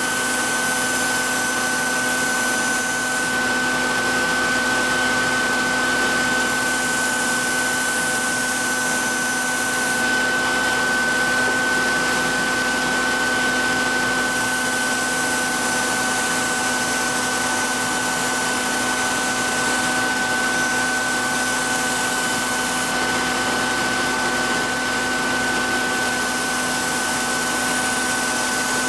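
Belt knife-sharpening machine and its dust vacuum running with a steady hum and whine. Over this come repeated stretches of a few seconds of high hissing as knife blades are drawn across the 400-grit sanding belt.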